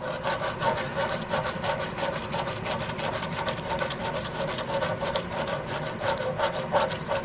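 Sandpaper wrapped around a file rubbed rapidly back and forth over a steel buckhorn rear sight held in a vise: a continuous, even scratchy rasping of many quick strokes, smoothing off burrs as the sight is prepared for metal finishing.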